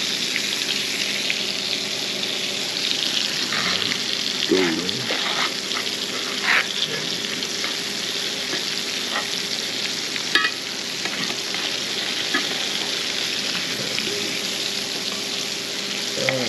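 Floured fish fillets frying in hot oil in a cast iron skillet: a steady sizzle, with a few sharp clicks of metal tongs against the pan as the pieces are turned.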